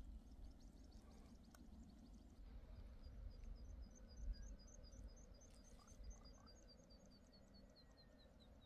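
A small bird singing faintly: a long series of thin, evenly spaced high notes, several a second, that slowly fall in pitch, starting a couple of seconds in, over a faint low rumble.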